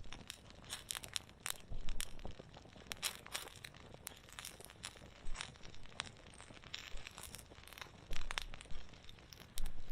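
Wood campfire crackling, with irregular sharp snaps and pops and a few louder ones.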